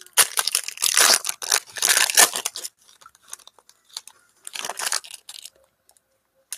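Foil wrapper of a Topps Tier One baseball card pack being torn open by hand, loud crinkling and tearing for the first two and a half seconds. After that come a few quieter rustles as the wrapper is opened out and the cards slid out.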